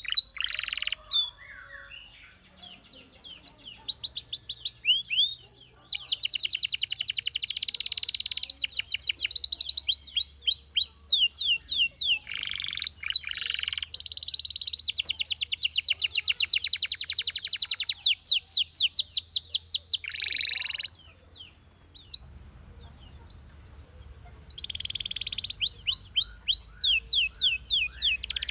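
Belgian canary singing a long song of fast trills, each a rapid run of repeated high notes, the phrases changing in speed and pitch. The song breaks off briefly near the start and again about three quarters of the way in.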